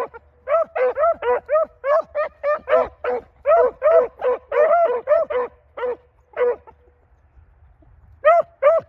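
Hounds baying in quick succession, about three short barks a second, two dogs' voices at slightly different pitches overlapping, as they give tongue on a rabbit's trail. The barking breaks off about seven seconds in, and two more barks follow near the end.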